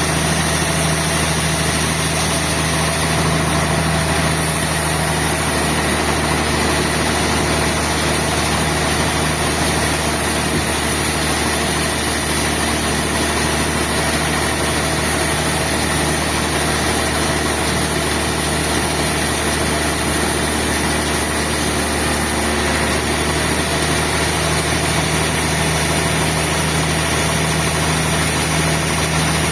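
Sawmill machinery running steadily: a constant, unchanging engine-like drone.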